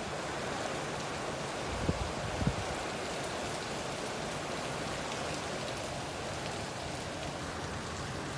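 Steady rain falling, an even hiss of rain on surfaces, with two brief dull thumps about two seconds in.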